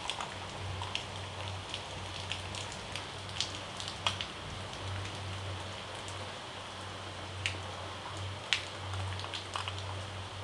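Steady sizzling hiss with scattered sharp pops and crackles from a hot tawa heating on the stove, over a low hum.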